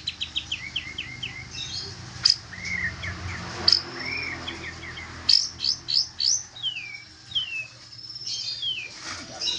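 A songbird singing in short phrases of quick, repeated whistled notes, mostly sliding downward, with sharp chirps between them.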